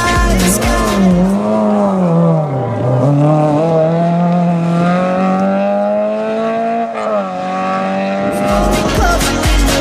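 Rally car engine under hard acceleration: the revs dip, then climb steadily for several seconds and drop sharply at a gear change about seven seconds in. Pop music fades out near the start and comes back in near the end.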